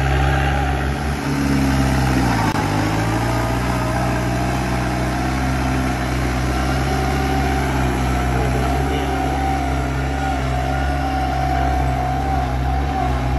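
New Holland 5630 tractor's diesel engine running steadily under load as it pulls a 19-tine cultivator through the soil. Its pitch dips briefly and recovers about two seconds in.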